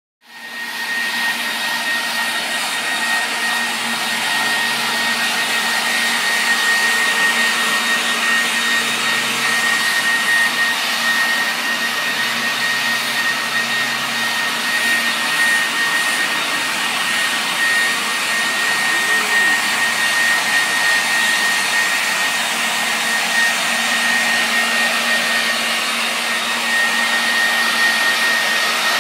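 Corded electric leaf blower running steadily, a rush of air with a high whine, used to blow-dry a dog's coat. It comes up to speed within about the first second.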